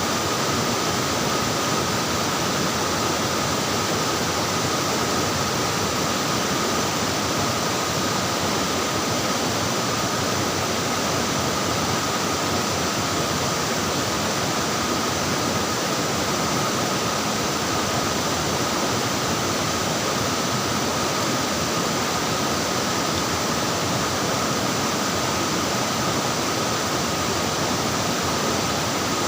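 Flowing, splashing water making a steady, even rush that does not change.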